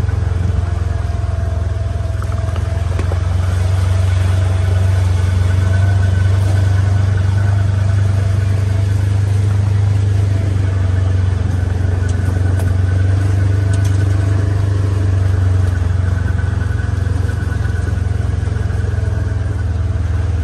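An engine running steadily at one speed, giving a loud, even low drone.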